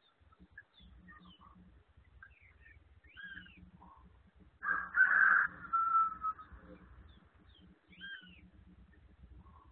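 A bird gives one loud, harsh call about halfway through that ends in a thinner drawn-out note. Short chirps and arched whistled notes of other birds come and go around it.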